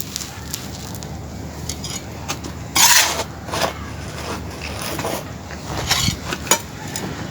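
Something dry being crumbled, making irregular crackling crunches, the loudest burst about three seconds in and another cluster around six seconds.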